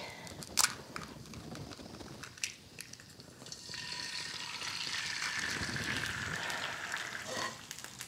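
An egg frying in bacon fat in a cast iron skillet: a few light clicks and taps, then a steady sizzle that starts a little past halfway through.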